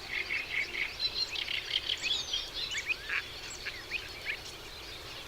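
Many small birds chirping and calling together, a dense tangle of short overlapping chirps and quick rising and falling whistles that thins out near the end.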